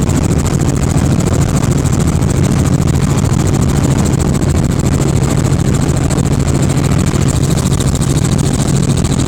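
Helicopter's engine and rotors running steadily: a constant low drone with a steady high whine over it.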